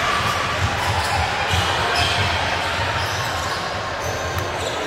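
Basketballs bouncing on a hardwood court, irregular dribbles heard as low thuds over the steady hubbub of a busy multi-court sports hall.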